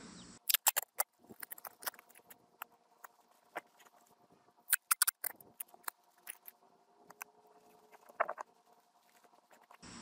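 Crackling and crinkling of Kimberly-Clark BlockIt house wrap tape being handled, its backing peeled off and the tape pressed down. It comes as scattered sharp clicks, with short clusters about half a second in, around five seconds in and just after eight seconds.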